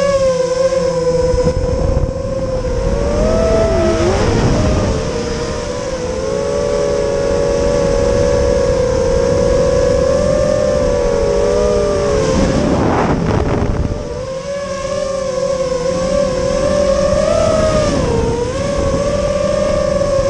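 FPV quadcopter's brushless motors and propellers whining on the onboard camera: several close tones that dip and rise together with throttle changes. A brief rush of noise comes about two-thirds of the way through.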